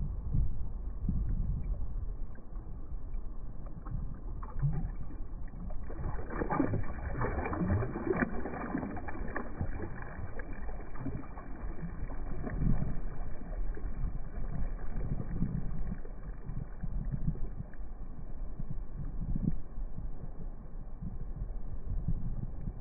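River water rushing and sloshing close against the microphone, with a stretch of louder splashing from about six to ten seconds in.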